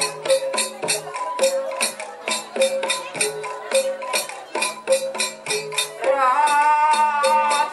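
Jathilan dance music in gamelan style: a fast, even pattern of metallic percussion strokes with ringing pitched tones. A high, wavering melody line comes in about six seconds in.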